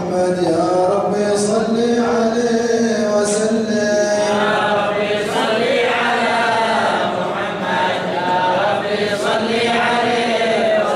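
Group of men chanting mawlid praise of the Prophet together, long held melodic notes that glide slowly from one pitch to the next.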